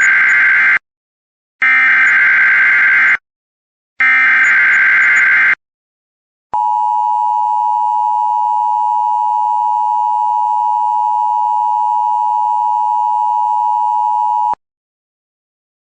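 Three short bursts of EAS digital header data, a harsh warbling screech, each separated by a second of silence. After a pause comes a steady, loud Emergency Alert System attention tone lasting about eight seconds, which cuts off abruptly. Together they announce the start of a new alert.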